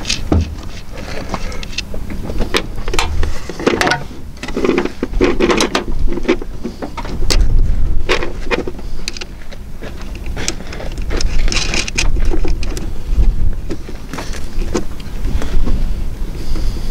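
Scattered clicks and clinks of battery cables being handled and fitted onto the terminal posts of a battery isolator under a minivan's hood, over a low rumble that rises and falls.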